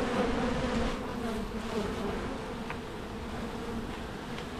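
Honeybee swarm buzzing at close range, a steady hum that grows a little quieter after the first second.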